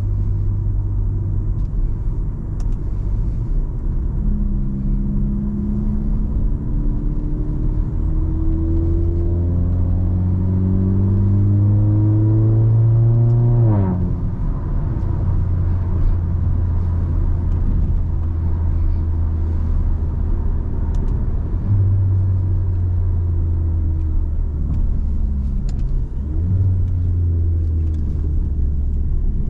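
Car engine and road noise while driving: the engine note climbs steadily under acceleration for about ten seconds, drops sharply about fourteen seconds in, then settles into a steady low drone with a couple of small shifts in pitch near the end.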